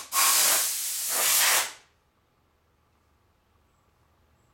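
Compressed air hissing in short blasts, blowing wax shavings and dust off the freshly shaved phonograph cylinder: a blast that cuts off just after the start, then a second of nearly two seconds that eases briefly in the middle and stops.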